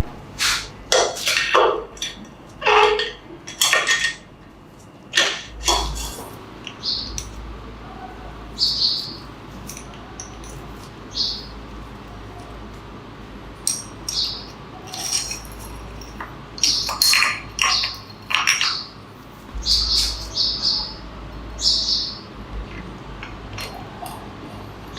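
Irregular light clinks and taps of metal tools and motorcycle engine parts being handled, some with a brief high ring.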